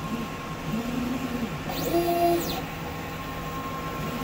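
Funsun DTF printer printing a head-test (nozzle check) pattern: the printhead carriage motor whines up and down in pitch as the head sweeps across the film, loudest about two seconds in, over the printer's steady hum.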